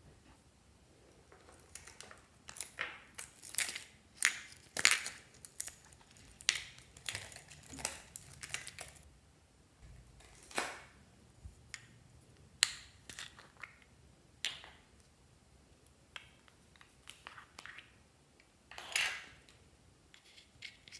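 Hands handling and opening small plastic pots: irregular clicks, taps and crinkly handling noises, thick for the first several seconds and then sparser, with a short scraping sound near the end.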